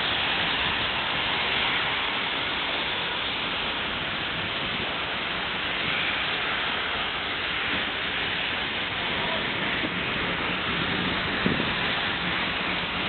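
Steam locomotive hissing steadily while standing with steam up, an even rushing hiss with no exhaust beat. The engine is a BR Britannia Class 7MT Pacific, no. 70013 Oliver Cromwell.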